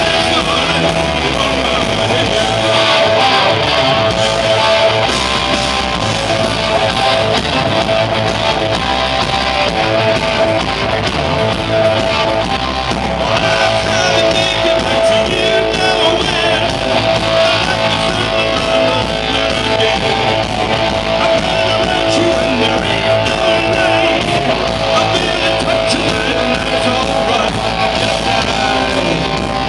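A rock band playing live at full volume: electric guitars and a drum kit, with a singer's voice in the mix.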